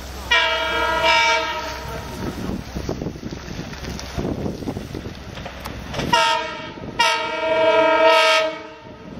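Horn of an approaching LIRR train's C3 cab car sounding a long blast, then about four seconds later a short blast and another long one, the warning for the grade crossing it is nearing. A low rumble of the oncoming train runs underneath.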